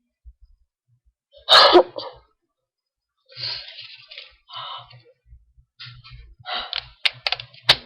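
A person sneezing once, loud and abrupt, about a second and a half in. Softer breathy noises follow, then a quick run of sharp clicks and short noises near the end.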